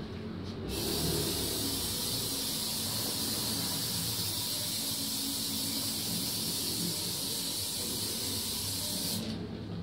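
Aerosol can of waterproofing protector spray hissing in one long continuous burst onto an outdoor shoe. It starts about a second in and cuts off shortly before the end.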